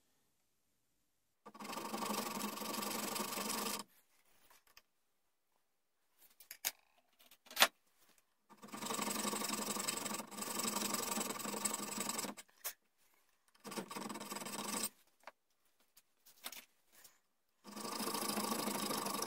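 Hand file cutting the V-notch in a steel rear sight clamped in a vise, in four runs of steady rasping a few seconds each with pauses between. A single sharp click about seven and a half seconds in is the loudest sound.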